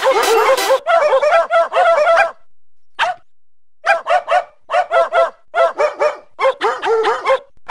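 A small dog yapping: quick runs of four or five short, high barks with brief pauses between the runs, and one lone bark about three seconds in.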